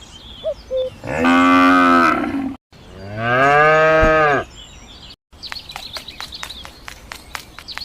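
Cow mooing twice, each a long drawn-out call of about a second and a half, the second bending up and then down in pitch. After a brief cut, a quick run of sharp clicks, about four a second, with a faint chirping over them.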